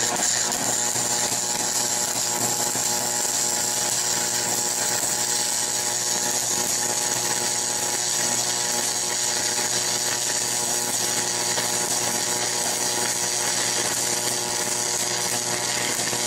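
Stick-welding arc crackling and hissing steadily as a Hobart Nomacast cast-iron electrode is run, DC electrode positive at a little over 120 amps, on a cast iron bell housing.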